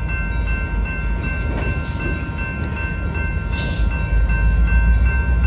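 Railroad grade-crossing warning bell ringing steadily while the gates are down, over a low rumble that grows louder about four seconds in. Two short hisses come partway through.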